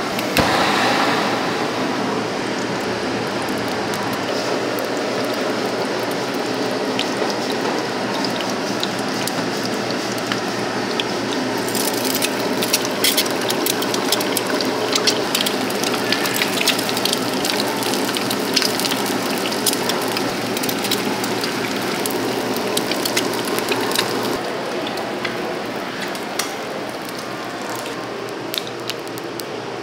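An egg frying in hot oil in a small pan: a steady sizzle full of crackles, with dense sharp spattering pops from about halfway through.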